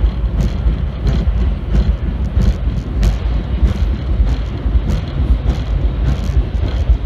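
Vintage R1/9 subway car running through a tunnel: a steady low rumble with irregular sharp clicks and rattles, about two or three a second.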